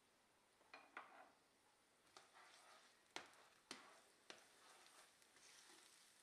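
A slotted spatula knocking and scraping in a non-stick frying pan as chopped onion is stirred in hot oil: several light knocks over a faint sizzle.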